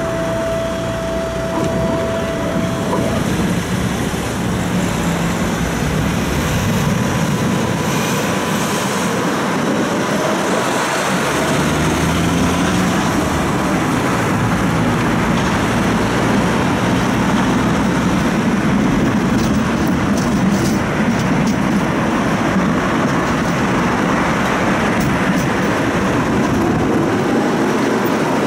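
Tram heard from on board, setting off from a stop and running along the street: a steady rumble of wheels on rail and motors. A steady high tone stops about three seconds in, the noise swells over the next few seconds as the tram gets under way, and a motor whine rises in pitch about twelve seconds in.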